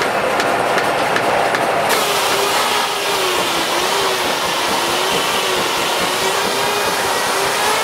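Steam-powered sawmill running, loud and continuous. About two seconds in, the clatter gives way to a steady whine that wavers slightly in pitch, as from the circular saw blade spinning through wood.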